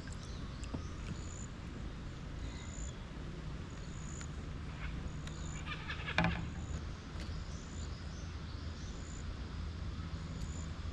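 Birds calling in the background, one giving a short, high call about every second and a half, with fainter chirps in between. About five to six seconds in there is a brief burst of clicks and rattles.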